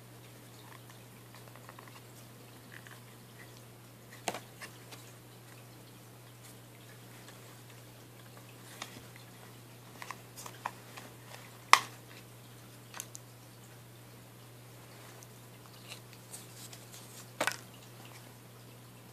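Scattered clicks and taps of a hard plastic phone case and its belt-clip holster being handled and unclipped, with one sharp snap about two-thirds of the way through. A steady low hum runs underneath.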